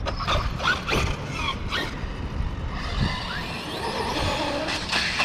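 Small electric RC monster truck driving: its motor whines up and down in pitch, its tyres scrub on pavement, and wind rumbles on the microphone.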